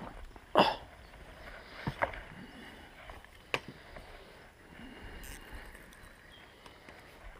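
A few short, sharp knocks and clicks, the loudest about half a second in, over a faint steady outdoor background.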